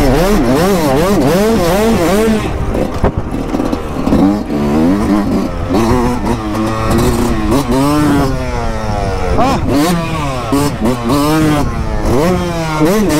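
Yamaha YZ two-stroke motocross bike heard from on board while riding, the engine revving up and dropping off again and again as the throttle is opened and shut.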